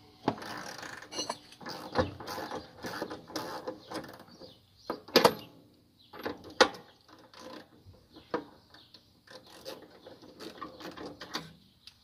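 Socket ratchet clicking in irregular runs as the 22 mm (7/8 in) drain plug of an RV water heater tank is backed out, with a few sharper, louder clicks near the middle.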